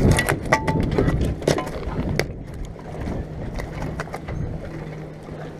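Knocks and rattles of a bowfin being worked out of a metal-framed landing net on a plank deck, sharp and frequent in the first two seconds, then thinning. A low steady hum sets in about three seconds in.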